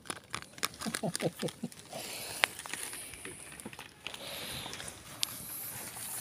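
A cat eating from a food tray right at the microphone, a quick run of wet chewing and crunching clicks for about the first two seconds, then softer rustling with one sharp click.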